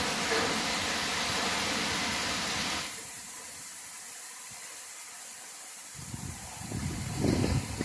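Heavy thunderstorm rain hissing steadily, easing a little about three seconds in. About six seconds in, a low rumble of thunder starts to build and swells near the end.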